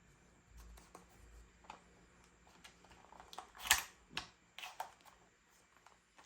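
Irregular light clicks and knocks of a plastic toy gun being handled, with one sharper click a little past the middle.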